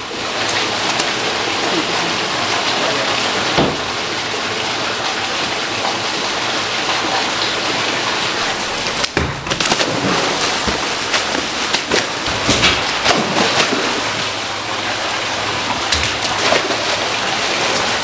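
Water gushing and splashing steadily into a fish-farm tank, with the tank water churning and a few louder splashes in the second half.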